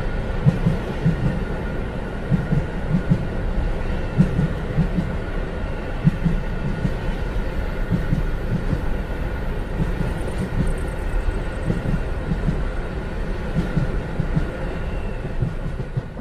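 A train running, heard from inside the carriage: a continuous low rumble with irregular thuds and jolts from the wheels and track, over a faint steady high whine.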